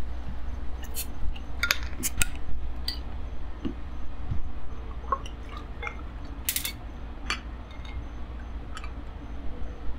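Blue Moon Belgian white wheat ale being poured from glass bottles into tall glasses, with a scatter of sharp glass clinks and taps as the bottles meet the glasses.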